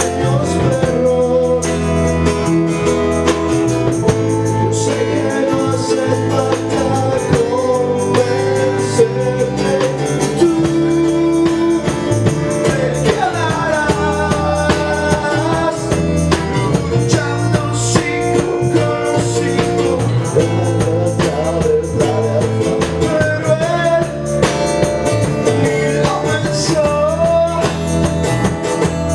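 Live rock band playing: a man singing over electric guitar, bass guitar and keyboard.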